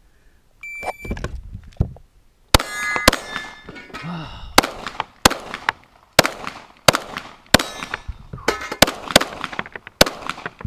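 A competition shot timer gives a short beep under a second in, then a Glock pistol fires a rapid, uneven string of about a dozen shots, with metallic clangs and rings from steel targets being hit.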